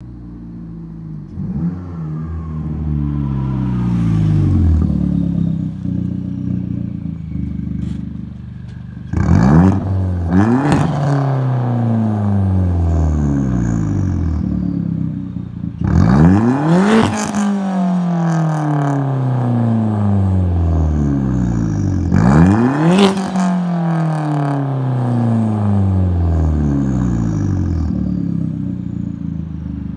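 Straight-piped, catless exhaust of a 2010 Hyundai Genesis Coupe 2.0T's turbocharged four-cylinder being revved: several sharp blips, some in quick pairs, each winding slowly back down to idle.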